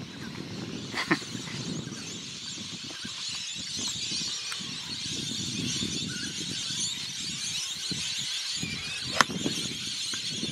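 Golf iron striking the ball off the fairway: one sharp click about nine seconds in, the loudest sound, over a steady outdoor hiss. A smaller knock comes about a second in.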